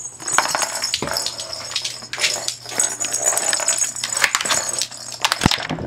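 A cat playing with a round cardboard scratcher toy: a small ball rattling and rolling around the toy's track and paws scraping at it, a rapid, irregular run of clicks and scrapes, with a couple of dull thumps near the end.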